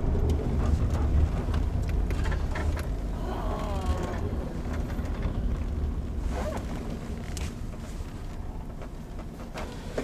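Camper van's engine and road rumble heard from inside the cab, a steady low rumble that eases off as the van slows into a parking spot.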